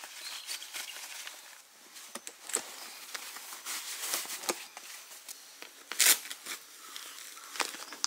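Footsteps scuffing and rustling on the ground, a string of irregular short crunches with the loudest about six seconds in.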